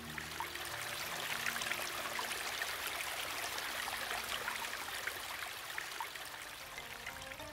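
Small shallow creek trickling over stones: a steady rush of running water with many small splashes and drips in it.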